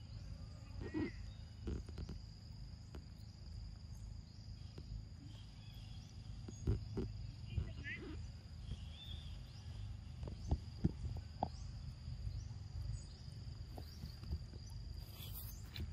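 Steady high-pitched insect drone over a low rumble, with a few sharp soft knocks and a couple of brief chirps.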